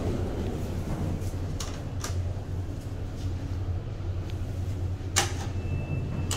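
1980s Hitachi lift in operation: a steady low machinery hum with a few sharp clicks, the loudest about five seconds in, and a short high beep near the end.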